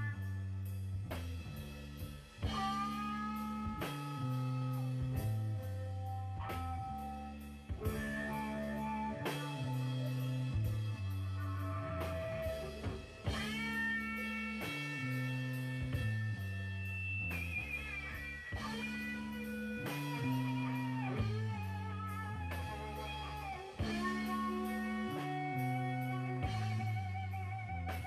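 Background music: electric guitar over a walking bass line and drums, the lead guitar playing held, bending notes with vibrato in a blues style.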